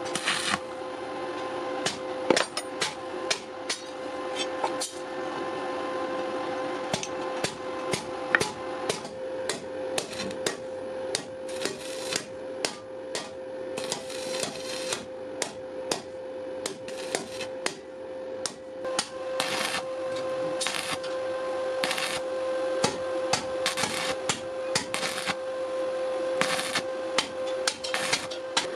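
Hand hammer striking metal on an anvil in an irregular series of blows, about one or two a second, some ringing longer than others, over a steady hum.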